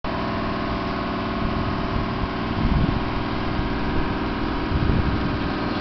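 Cherry picker's engine running steadily with a constant hum, the platform being raised, with two brief louder low surges about two and a half and five seconds in.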